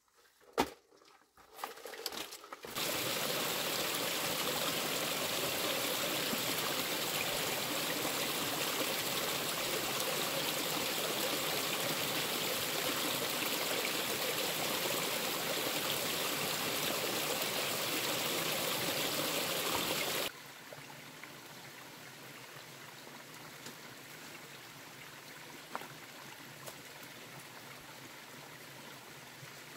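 Water running steadily, starting suddenly about three seconds in after a few light knocks and cutting off abruptly about twenty seconds in, leaving a fainter steady rush of water.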